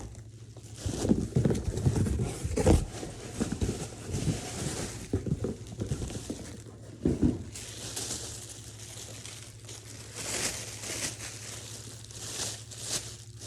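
Packaging being handled: irregular crinkling and rustling, with knocks and thuds, loudest in the first few seconds.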